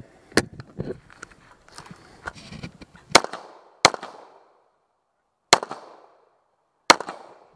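Rifle fired four times: two quick shots about three seconds in, then two single shots about a second and a half apart, each with a short echo trailing off. Lighter knocks and rattles come before the first shot.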